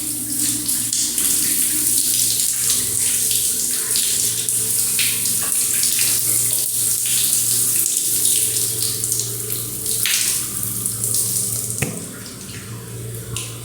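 Shower running: water spraying and splashing in a steady hiss, with a low steady hum underneath. The water gets quieter about twelve seconds in.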